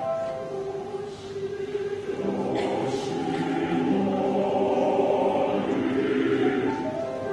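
Adult choir of mixed voices singing, holding long chords; the sound thins about a second in and then swells fuller.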